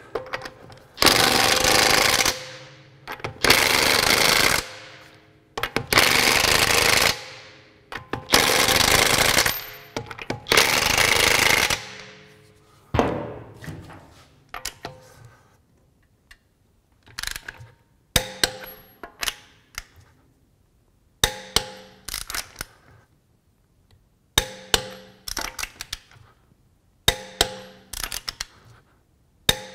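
Craftsman V20 brushless half-inch high-torque impact wrench (CMCF940M1) hammering on a car's lug nuts in five bursts of one to two seconds each, trigger-controlled on its level-2 setting, the motor spinning on and dying away after each release of the trigger. In the second half, a series of short, sharp metal clinks and knocks.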